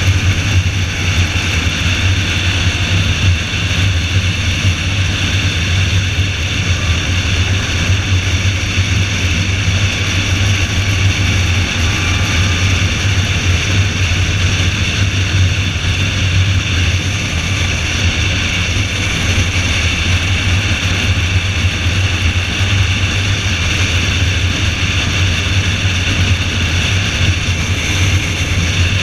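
Car driving at speed on a wet race track, heard on board: a steady engine drone with constant road and wind noise.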